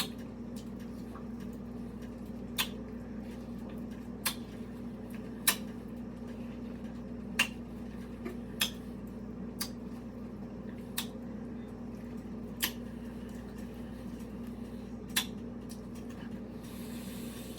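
Wet, sharp smacking clicks of mouth sounds while eating a mango, about nine at irregular intervals, over a steady low hum.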